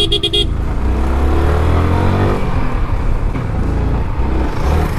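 Motorcycle riding in traffic: steady engine and road noise, with engine pitch rising and then falling about two seconds in. A short pitched beep sounds at the very start.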